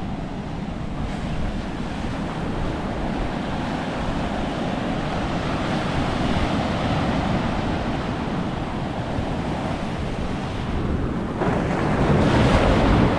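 Ocean surf washing in continuously, with wind buffeting the microphone; the surf swells louder near the end.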